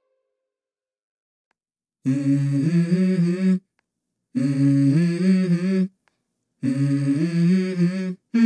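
Background music: a low, wordless hummed vocal melody in three short phrases separated by silent gaps, entering about two seconds in after silence.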